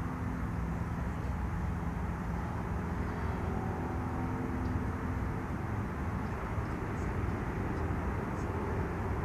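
Steady low drone of a distant engine, with a few faint short high chirps now and then.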